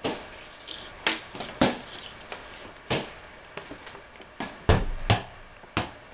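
A ball being thrown and caught back and forth: a string of sharp slaps at irregular intervals, roughly one or two a second, with a heavier thud about two-thirds of the way through.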